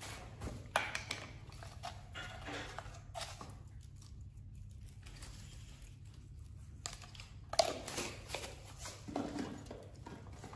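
Small tabletop handling sounds: a spoon clicking and scraping in a small plastic jar of seasoning and tapping onto a plastic plate, as scattered short clicks over a low steady hum.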